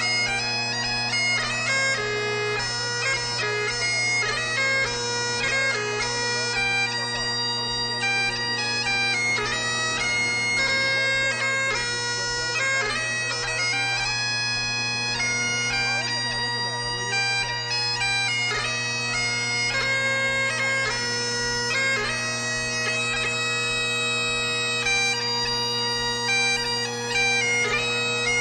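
Bagpipes playing a tune, the chanter's melody moving from note to note over a steady low drone.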